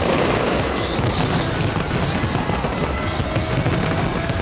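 A big fireworks display going off in a continuous dense crackle of bursts, with no break.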